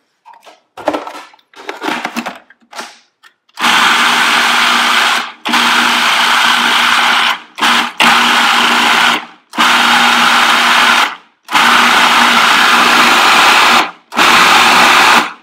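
A few seconds of scattered handling noises as greens go in, then a food processor's motor run in about seven short pulses, each one to two seconds long with brief gaps. The pulses chop a handful of greens and olive oil into pesto.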